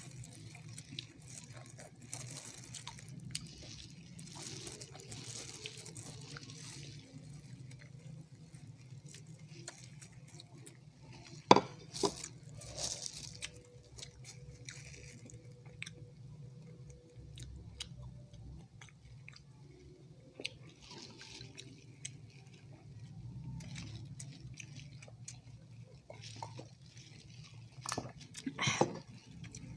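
Close-up eating sounds of sauced chicken wings being eaten by hand: soft chewing, wet sticky mouth and finger sounds and scattered small clicks, over a steady low hum. A single sharp knock stands out about a third of the way through, and a sip from a glass comes near the end.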